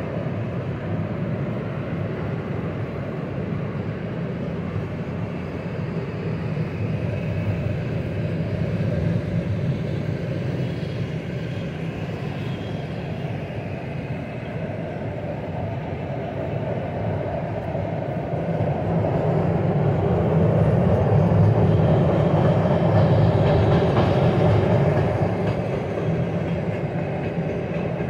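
Freight wagons loaded with tank containers rolling past over a railway overpass: a steady rumble of wheels on rail, swelling louder for several seconds about two-thirds of the way through.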